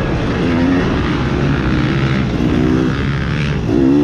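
Onboard sound of a motocross dirt bike's engine being ridden hard, its pitch rising and falling as the rider works the throttle through the dirt track.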